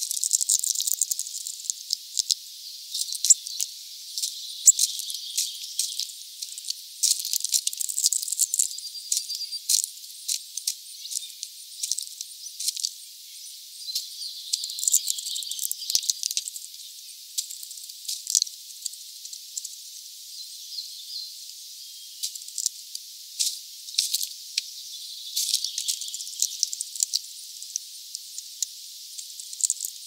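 Irregular sharp clicks and light rattling as a hawfinch pecks and rummages through sunflower seeds and husks on a feeder tray, cracking seeds with its beak.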